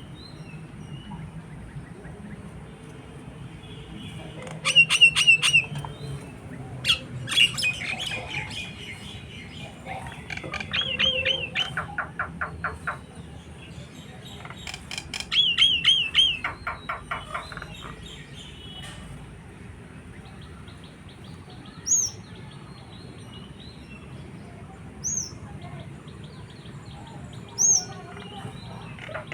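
Birds calling: four bursts of fast, rattling, warbling calls over the first two-thirds, then a few short high whistles near the end.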